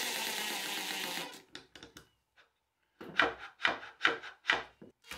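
Cordless drill driving a screw through a washer into the end of a wooden dowel, running steadily for about a second and a half. After a short silence, an 18-volt Makita cordless impact driver drives screws into plywood in several short bursts.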